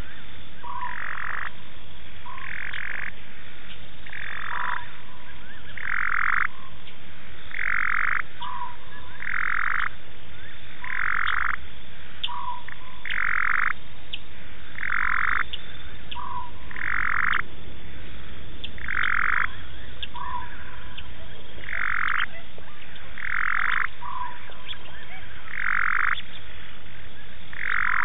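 A frog calling over and over, one call about every two seconds, each a half-second call followed at once by a short lower note.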